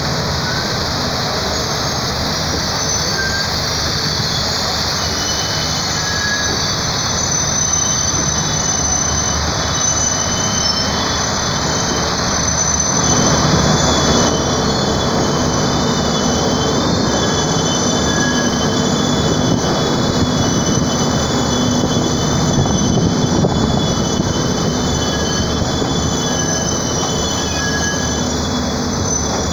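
Steel wheels of a passenger train squealing against the rails on curving track: several high, wavering squeal tones held over the train's steady rolling noise, which grows a little louder about halfway through.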